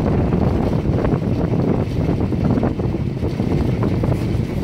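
Steady wind rushing over the microphone at the open window of a moving vehicle, with the vehicle's low running noise underneath.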